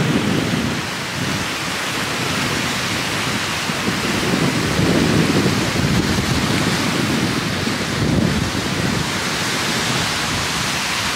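Strong wind buffeting the microphone in uneven gusts, over the steady wash of choppy lake waves breaking on a stony shore.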